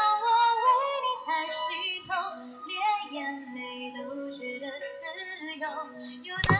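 A song plays with a high-pitched voice singing the melody, and there is one sharp click near the end.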